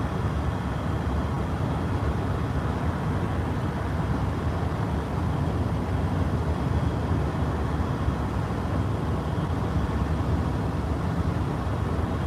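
Steady road noise inside the cabin of a moving car: a continuous low rumble of tyres and engine.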